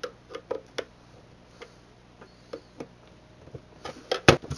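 Irregular clicks and taps of hands and tools working on the plastic housing of a DirecTV unit being taken apart, with a louder cluster of knocks near the end.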